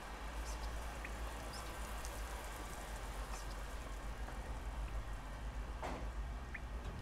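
Running shower water: a steady hiss of spraying water over a low hum, with faint scattered drips and taps and a soft knock about six seconds in.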